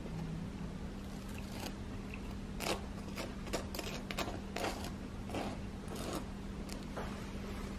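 A knife spreading butter on crisp toast: a run of short, crunchy scraping strokes.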